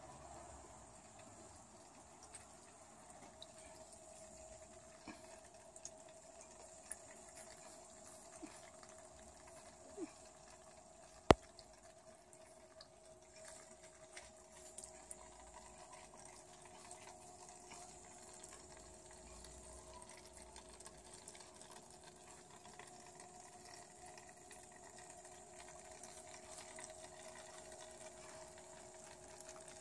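Faint trickling and dripping of water from a small solar-powered pump circulating water through hydroponic containers, over a faint steady tone. A single sharp click comes about a third of the way through.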